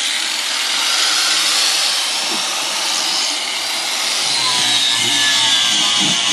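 Angle grinder cutting into a minivan's sheet-metal floor to lengthen a seat-mounting hole: a loud, steady grinding with a high whine, throwing sparks.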